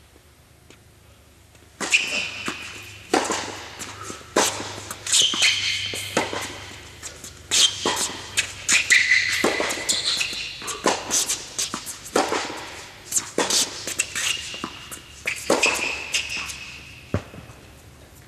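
Tennis rally on an indoor hard court: racket strikes and ball bounces ringing in the hall, mixed with short squeaks of sneakers on the court. It starts about two seconds in and stops a couple of seconds before the end as the point finishes.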